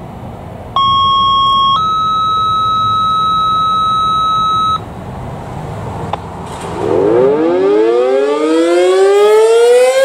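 A two-tone radio activation signal: a one-second steady beep, then a higher beep held about three seconds. About seven seconds in, a Sentry 40V2T dual-tone outdoor warning siren starts winding up, its chord of tones rising in pitch and nearing full speed at the end.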